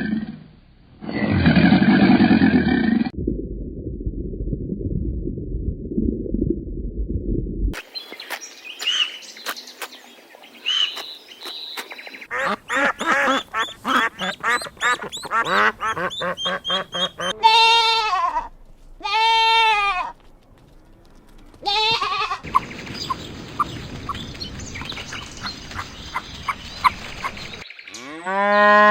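A string of farm animal calls cut one after another: a fast run of short calls in the middle, like ducks quacking, then two separate bleats whose pitch rises and falls, typical of goats, and another bleat near the end.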